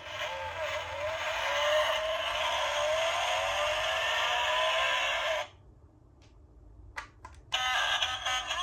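Small plastic toy cars rolling and rattling down a toy slide, stopping abruptly about five seconds in. A few clicks follow, then an electronic beeping tone starts near the end.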